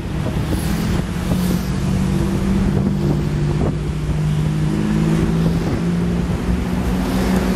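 Motor engine running steadily at a constant low pitch, over a continuous low rushing noise.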